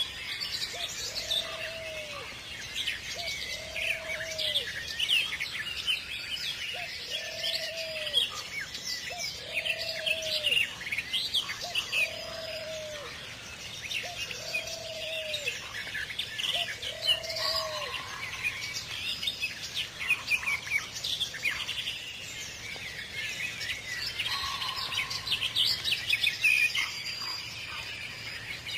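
A chorus of songbirds chirping and trilling over one another. A lower single note repeats about every second and a half through the first half, then stops.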